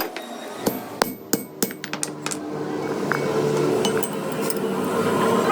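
Sharp metal clicks and knocks of hand tools on steel, then a steady machine hum that grows louder from about halfway through.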